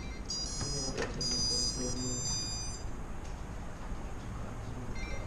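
A series of high electronic beeps lasting about two and a half seconds, starting shortly after the start and stopping before the halfway point, from drone electronics being powered up.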